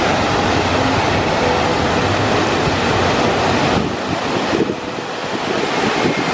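Water slide runoff pouring from the ends of drop slides and splashing into a splash pool: a loud, steady rushing splash that eases briefly about four seconds in.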